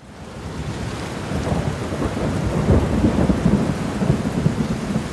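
Steady rain with a low rumble of thunder that swells in the middle and eases off.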